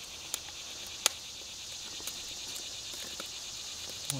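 Chicken breasts sizzling on a charcoal grill: a steady, quiet hiss with a few sharp pops.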